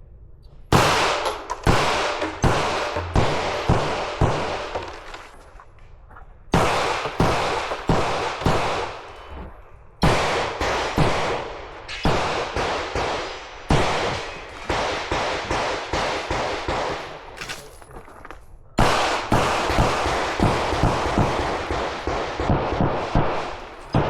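Pistol fired in rapid strings during a timed match stage: sharp shots about two to four a second, each trailing off in reverberation, with short pauses between strings as the shooter moves between targets or positions.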